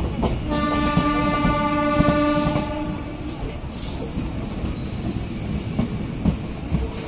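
Train horn sounding one steady note for about three seconds, over the rumble and clatter of train wheels on the rails.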